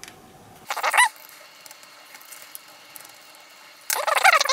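Two short, high, wavering squeaks, about a second in and near the end: a tiny Phillips screw squeaking as a jeweler's screwdriver turns it out of the Blade Inductrix FPV's plastic frame.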